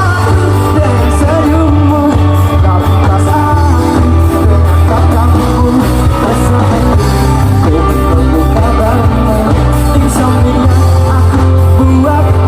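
Loud pop-rock music with a heavy, steady bass line and singing.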